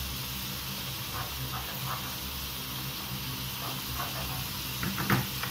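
Cream and boletus mushroom sauce simmering in a frying pan, a steady hiss, with a few light taps of a wooden spatula as it is stirred.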